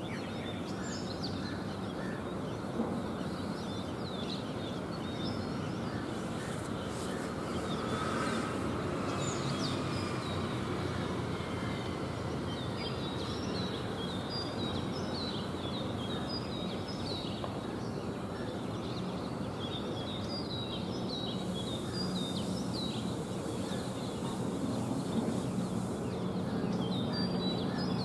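Small birds chirping, many short high chirps in quick series, busiest in the second half, over a steady background rumble.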